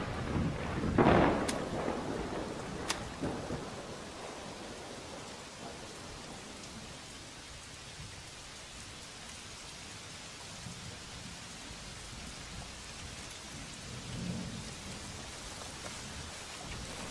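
Thunder rumbling loudly about a second in, then steady rain falling, with a softer rumble of thunder near the end.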